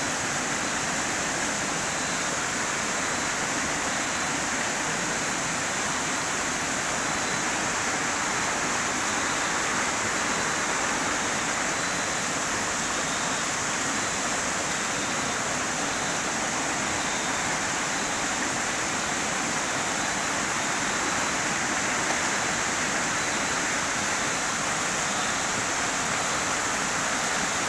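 Small rocky stream rushing over stones: a steady, even rush of water.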